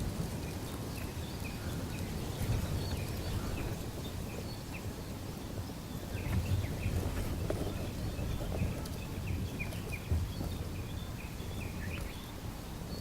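Outdoor background noise, a steady low rumble, with small birds chirping in short, scattered calls.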